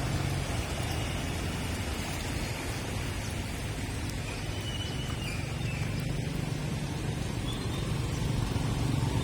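Road traffic on a wet city street: a steady hum of engines under an even hiss of tyres on wet pavement.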